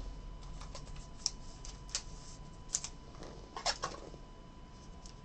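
Light clicks and plastic rustles of a trading card being handled and slid into a clear plastic sleeve, with a small cluster of clicks a little past halfway.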